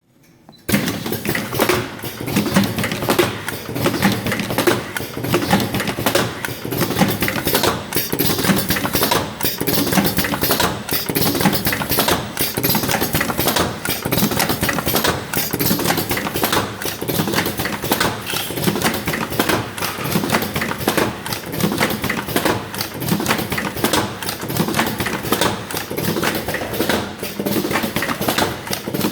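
Automatic cartoning machine running, a continuous fast clatter of many small mechanical clicks and knocks as it forms, fills and closes boxes.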